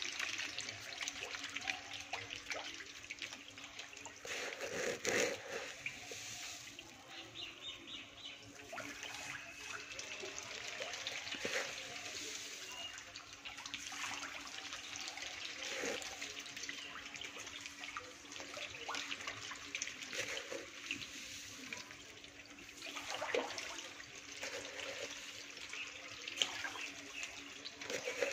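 Water splashing and churning as a dense crowd of young magur (walking catfish) thrash at the surface of a hatchery tank, feeding, with many small irregular splashes. A faint steady hum runs underneath.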